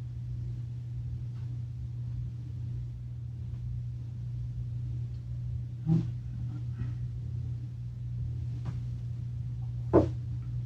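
A steady low hum, with two short knocks on the workbench, one about six seconds in and a louder one near the end.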